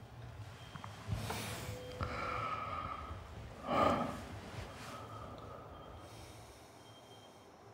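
A person breathing in bed, with a few soft breaths and one short, louder breath through the nose about four seconds in.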